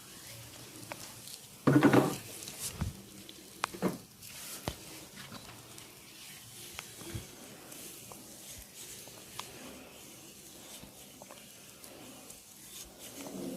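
Barber's hands working a client during a massage: low rubbing and rustling, a short loud sound about two seconds in, and a scatter of sharp clicks, most of them in the first few seconds.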